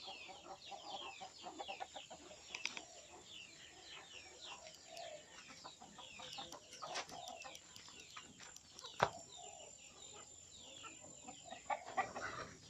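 Free-range village chickens clucking faintly, over dense high chirping in short falling notes. A sharp snap about nine seconds in.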